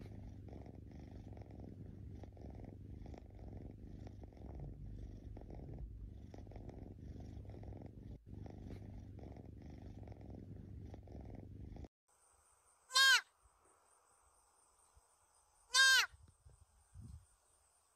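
Cat purring steadily, then cutting off suddenly; a deer fawn then gives two loud bleats about three seconds apart.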